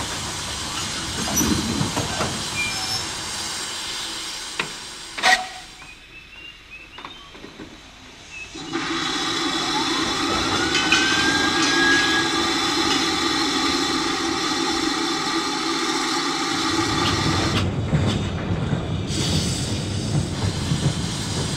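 Archive recording of a Great Western steam locomotive: train noise with one sharp click, then a quieter spell, and from about eight seconds in a loud steady hiss of steam with held whistling tones, turning to a lower rumble near the end.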